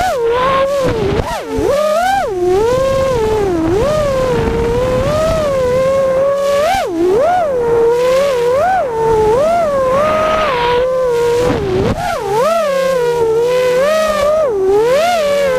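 Small multirotor drone's electric motors and propellers whining, heard from on board. The pitch rises and falls quickly and repeatedly as the throttle changes.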